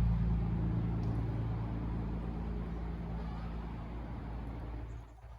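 A motor vehicle's engine, a low steady drone that fades gradually as it moves away, over a hiss of rain.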